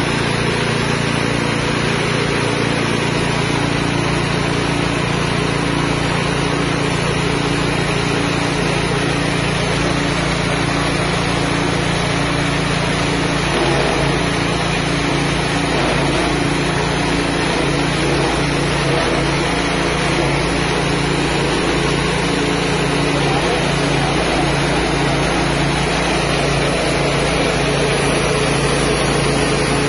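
Mini rice milling machine with its small 6.5 hp engine running steadily, hulling and milling paddy into white rice. The running sound turns rougher about halfway through.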